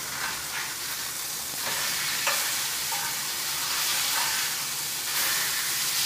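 Ribeye steaks sizzling in lard and butter in a cast-iron pan at full heat. The sizzle gets louder about two seconds in as the steaks are turned with a spatula.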